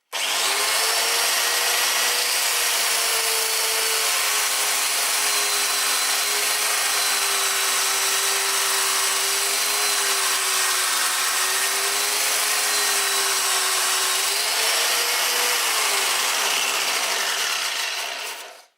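Homemade belt grinder driven by an angle grinder motor, running a 50 mm abrasive belt against a piece of steel. A steady hiss rides over the motor's hum. Near the end the motor's pitch falls and the sound fades as it winds down.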